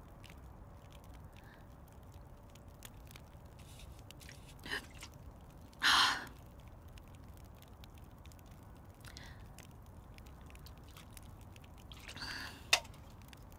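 Faint low background noise broken by a few short breaths; the loudest, a sigh, comes about halfway through. A sharp click near the end.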